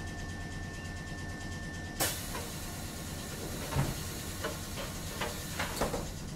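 Kotoden 1070-series electric train car: a steady hum with a thin high tone, then a sudden hiss of released air about two seconds in that keeps going. Several clunks follow in the last few seconds.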